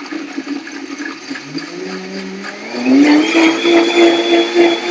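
Countertop blender motor blending a dressing while its speed dial is turned up from low toward high: the motor's whine rises in pitch and gets much louder about three seconds in.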